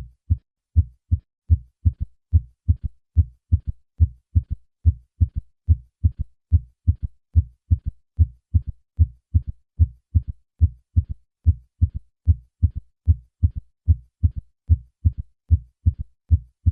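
Heart sounds heard through a stethoscope bell at the cardiac apex: low, dull thuds of the first and second heart sounds, each second sound followed closely by a softer third heart sound in early diastole, giving a steady three-beat gallop. In those over 40, a third heart sound usually indicates decreased left ventricular function; in children and young adults it can be a normal finding.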